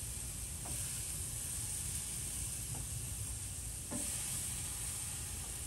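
Raw chicken thighs sizzling on the hot grate of a charcoal-fired Oklahoma Joe's Bronco drum smoker as they are laid down, a steady sizzle with a few faint clicks.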